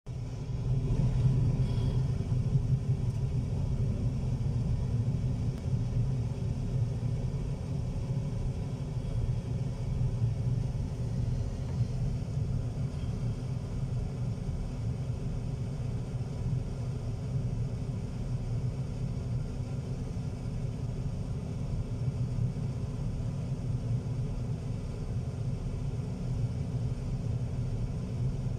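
Steady low rumble of a port crane's machinery running.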